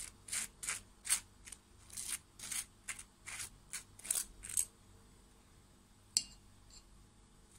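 A table knife scraping butter across a slice of toasted bread in quick, even strokes, about two or three a second, which stop after about four and a half seconds. A single sharp click follows a little later.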